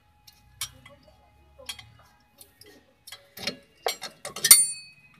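Wrench clicking and clinking against the stabilizer link nut and suspension parts while the nut is loosened: irregular sharp metal clicks that come faster after a few seconds, the loudest a ringing clink about four and a half seconds in.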